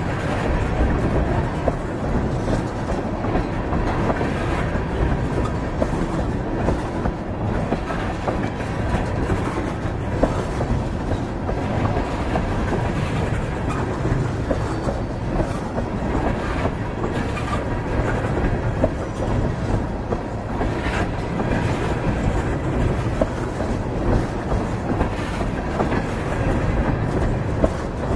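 Train cars rolling along, their steel wheels clattering steadily on the rails.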